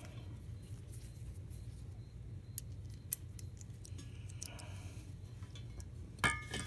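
Scattered metallic clicks and clinks of fasteners and tools being handled, with two sharper ticks about two and a half and three seconds in and a cluster of clinks near the end, over a steady low hum.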